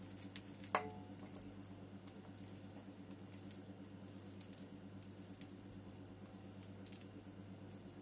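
Potting work in ceramic pots: one sharp clink about a second in that rings briefly, like ceramic being struck, then light scattered ticks and patter of soil being handled, over a steady low hum.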